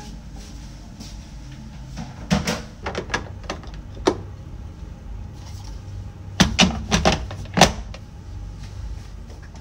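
Hard plastic clicks and knocks as a washing machine's lint filter is slotted back into the top of the machine and its plastic lid and cover are pressed shut. There are several knocks about two to four seconds in and a quick cluster of louder ones around six to eight seconds, over a low steady hum.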